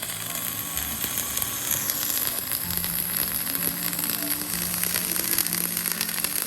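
Electric arc welding: a steady, dense crackle and sizzle from the welding arc, with background music underneath.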